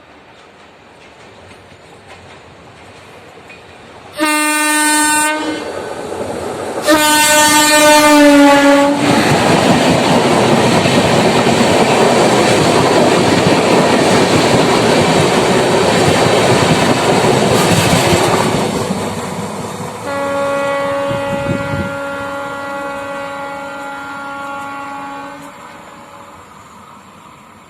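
WAP-5 electric locomotive's horn sounds two blasts as the train approaches, the second sliding slightly down in pitch. The LHB coaches then rush past loudly at speed with rattling wheels on the rails. From about 20 s the horn sounds again in longer blasts, lower in pitch and fading as the train moves away.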